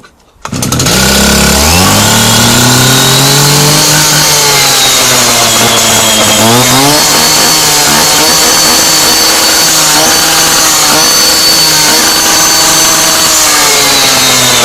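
Stihl TS 400 cut-off saw's two-stroke engine catching from cold on half choke about half a second in, then running loud and fast. Its speed sags around the middle, picks back up, and drops again near the end. It runs with no horrible noises, a sound engine.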